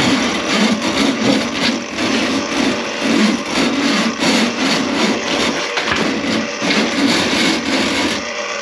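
Drain snake running, its cable turning and grinding in the sink's drain line to clear a clog, an uneven churning noise that swells and fades in quick pulses.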